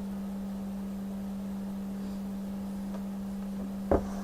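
Steady low electrical hum, one unchanging tone. A single short knock near the end.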